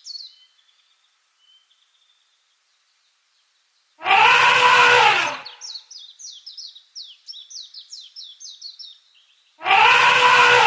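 An elephant trumpeting twice, each a loud blare of about a second and a half whose pitch rises and falls, the first about four seconds in and the second near the end. Between the calls a bird sings a run of quick, high, falling chirps, about five a second.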